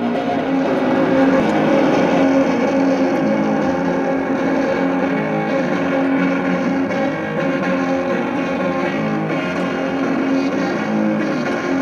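Reciprocating saw (Sawzall) running steadily, cutting into refrigerator sheet metal, over electric guitar music.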